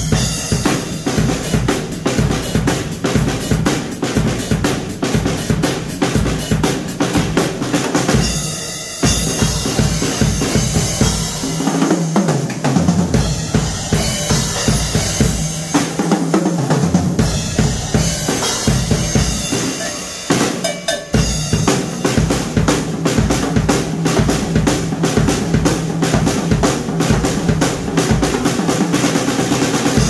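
Ludwig drum kit played fast: rapid bass drum strokes under snare rolls and fills. The playing breaks off briefly twice, and twice midway the bass drum drops out for a second or two.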